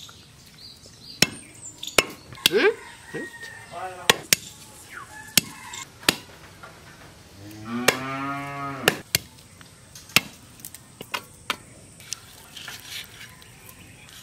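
Irregular sharp chops of a blade cutting chicken pieces on a wooden log, roughly one a second. A cow moos once about eight seconds in, a call of under two seconds.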